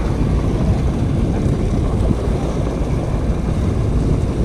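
Wind buffeting the microphone on an open boat at sea: a steady low rumble.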